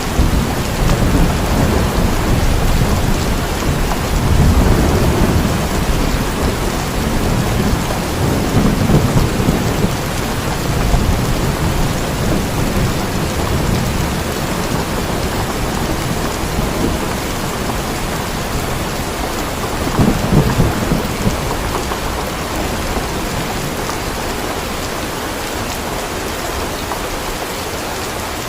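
Steady rain with thunder rumbling underneath, the rumble swelling a few times, about five, nine and twenty seconds in, and dying down toward the end.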